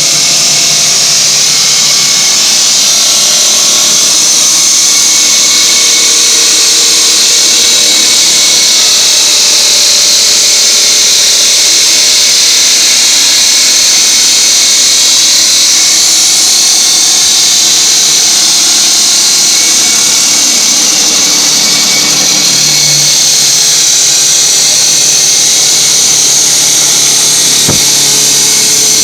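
Diamond saw cutting reinforced concrete: a loud, steady, high-pitched grinding whine that runs on without a break.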